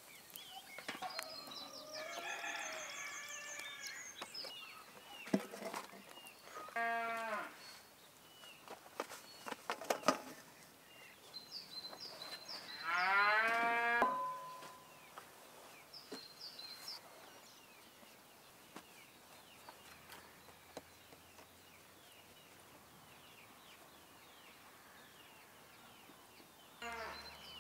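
Cattle mooing outdoors: a shorter call, then a long, louder moo about halfway through. Small birds chirp in between.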